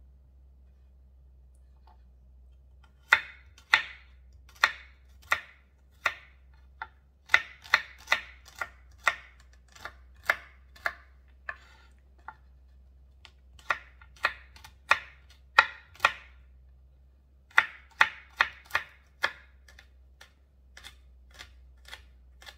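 Kitchen knife chopping garlic cloves on a wooden cutting board: sharp, irregular taps of the blade striking the board. They start about three seconds in, come in runs with short pauses, and turn softer near the end.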